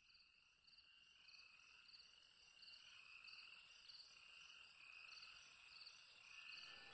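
Faint high-pitched chirping: short chirps repeating at an even pace, a little over one a second, over a thin wavering whistle and a steady high tone.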